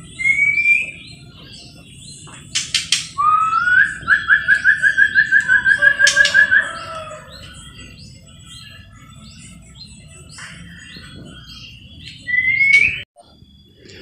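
White-rumped shama (murai batu) song: a rising whistle, a few sharp clicks, then a rising glide into a fast run of about seven repeated notes a second lasting some three seconds, with lighter high chirping from other birds behind and another rising whistle near the end.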